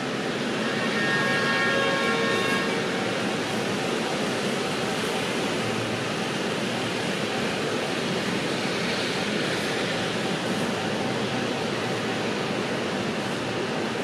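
Steady city background noise, a continuous rumble and hiss like passing traffic or trains. A brief chord-like tone sounds over it from about a second in.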